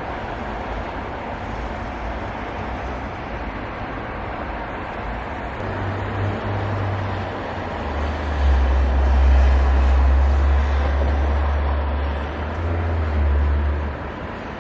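Steady road noise of a moving car, with a heavy low rumble that sets in about eight seconds in and eases near the end.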